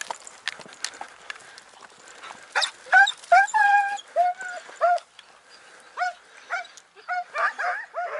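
Hunting hound giving tongue on a hare's trail: a run of about a dozen short, high yelps that begins a couple of seconds in, one of them a longer drawn-out note. Before and under the yelps come scattered crackles of footsteps through dry scrub.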